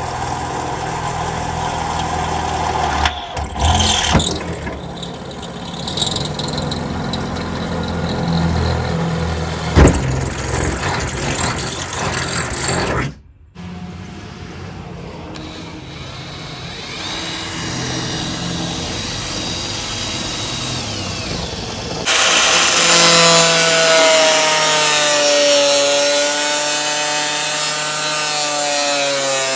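Corded angle grinder cutting through the school bus's sheet-steel wall. It starts loud about three-quarters of the way through, its whine wavering in pitch as the disc bites into the metal. Earlier there is a steadier machine hum with a few sharp knocks.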